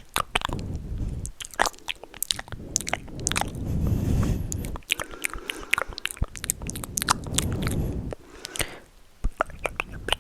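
Close-miked ASMR sounds: a steady stream of wet, sharp clicks, with stretches of soft, low rubbing noise twice near the middle.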